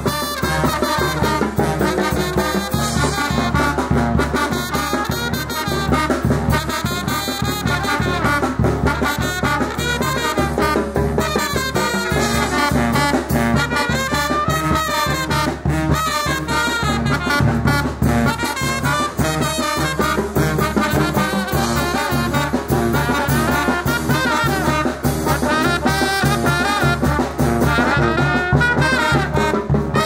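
Mexican brass band playing a chilena live. Trumpets and trombones carry the tune over a sousaphone bass line, with a steady, even beat.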